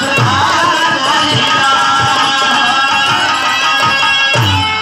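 Live birha folk music: held instrumental tones with a man's singing voice wavering through the first second or so. A hand drum comes in near the end with deep, pitch-bending bass strokes.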